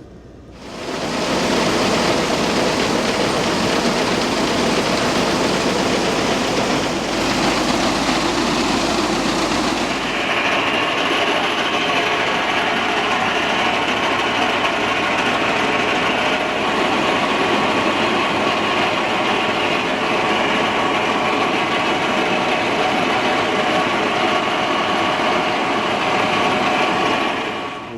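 Farm machinery running steadily with a loud mechanical rumble and clatter. About ten seconds in the sound changes, as the low rumble drops away and a higher steady whine takes over.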